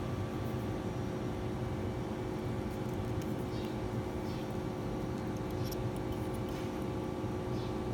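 Steady low hum with several constant tones running under the whole stretch. A few faint light clicks come from the middle on, as steel pliers and thin safety-pin wire are handled.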